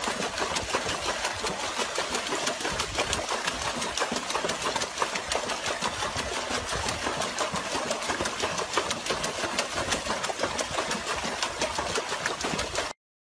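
A dog splashing hard in a plastic tub of water, pawing the surface in a fast, continuous churn of splashes; it cuts off suddenly near the end.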